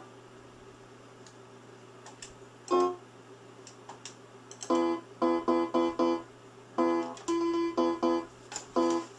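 Mid-1980s portable electronic keyboard being played on a plucked-string, guitar-like voice. A few faint clicks and a single note come first, then from about five seconds in a quick run of short repeated notes with one longer held note.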